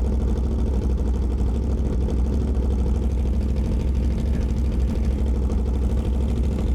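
Motorcycle engine idling steadily: a low, even hum with no revving.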